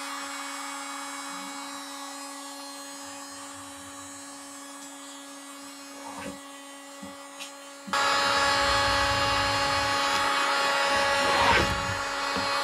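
Hot-air heat gun running with a steady hum as it softens an old cabinet decal. About eight seconds in, loud rough scraping and tearing starts as a scraper lifts the decal off the bare wood of the cabinet.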